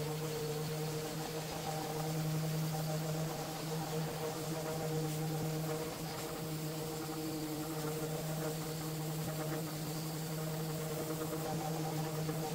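Random orbital sander running steadily as it sands a painted MDF panel with 120-grit paper, a steady hum with a dust-extraction hose attached.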